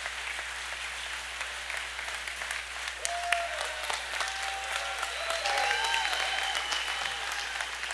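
A small crowd applauding steadily, with a few voices calling out over the clapping about halfway through.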